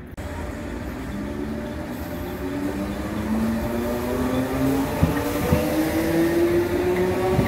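Southern class 313 electric multiple unit pulling away, its motor whine rising steadily in pitch as it gathers speed over a rumble that grows louder. A couple of short knocks come about five seconds in.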